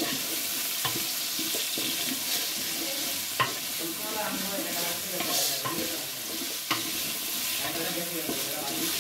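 Diced potatoes, carrots, onions and green chillies sizzling in hot oil in a metal pot while being stirred with a wooden spatula, which scrapes and knocks against the pot now and then.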